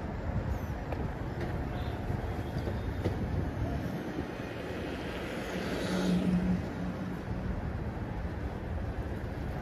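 Steady city traffic noise, swelling as a vehicle passes about six seconds in, with a brief low hum.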